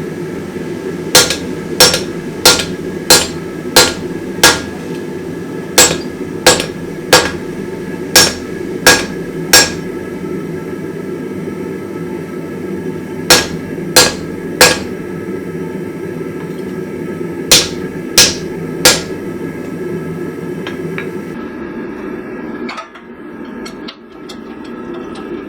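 Hammer blows on a hot Damascus steel billet on the anvil, drawing it out: sharp ringing strikes about one and a half a second, in runs of six, six, three and three with pauses between. Under them a steady low roar, which drops away near the end.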